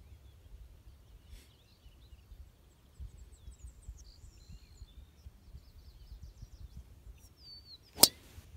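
A golf driver striking a teed ball: one sharp crack about eight seconds in, the loudest sound by far. Before it, a low background rumble with faint bird chirps.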